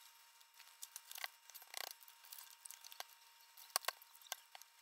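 Loose sheets of notebook paper being handled: faint, scattered rustles and crackles, with a few slightly louder crinkles spread through.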